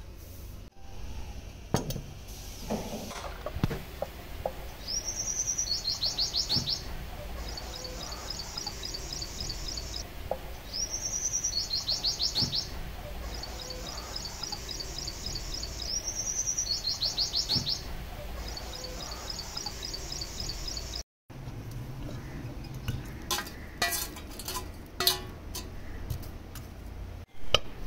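A songbird repeats the same high phrase three times, about every five and a half seconds: a quick rising-and-falling whistle running into a fast trill, then a dry rattling trill. Near the end, short clinks come as lumps of charcoal and metal pliers knock in the iron's firebox.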